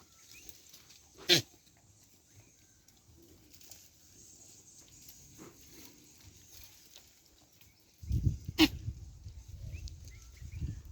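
Goats bleating in the background, with two sharp knocks, about a second in and about eight and a half seconds in, and a low rumble over the last few seconds.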